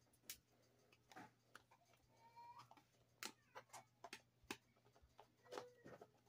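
Near silence broken by faint, scattered clicks and ticks of a plastic DVD case and its discs being handled, with a couple of faint short squeaks.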